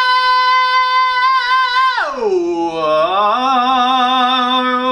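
A man's unwarmed voice singing wordlessly: a long high note held in head voice, then about two seconds in a slide down into a low note, rising again to a lower held note with vibrato.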